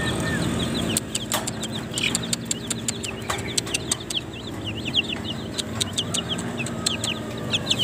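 Caged young fowl chick peeping: quick, short, high chirps that fall in pitch, coming in runs through the second half. A scatter of sharp clicks and taps sits over a steady low background hum.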